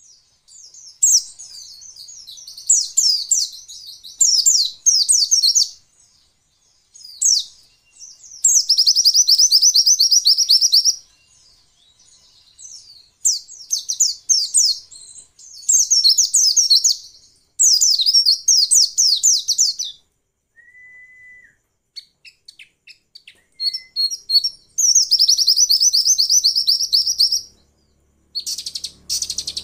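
A caged white-eye (pleci), given by the uploader as a female, singing: repeated bursts of very fast, high twittering trills, each a second or two long, with short pauses between. A faint short steady whistle comes about two-thirds of the way in.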